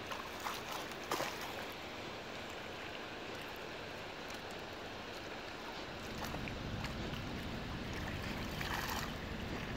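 Shallow water lapping and splashing at a pebble shore, stirred by catfish moving near the surface, with a few short splashes about a second in and again near the end. A low rumble joins from about six seconds in.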